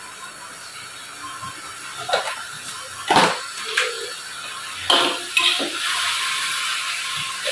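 Leafy greens sizzling in a steel wok over a gas flame, with a steady hiss. A metal spatula clanks against the wok a few times, then scrapes and clanks through the greens as they are stirred in the second half.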